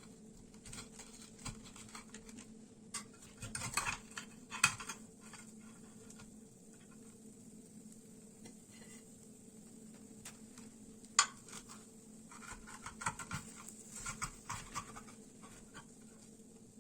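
Kitchenware being handled: dishes and utensils clinking and scraping in two short spells, with two sharp knocks, over a faint steady hum.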